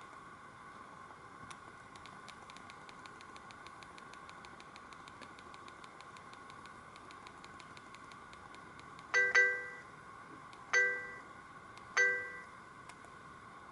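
Sony Ericsson K200i mobile phone sounding short electronic chime tones from its speaker: a doubled note about nine seconds in, then two single notes about a second and a half apart, each dying away quickly. Before them comes a fast run of faint ticks, about seven a second, over a steady hiss.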